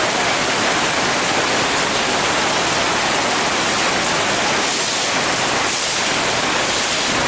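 Heavy rain pouring down onto a wet paved street: a steady, dense hiss.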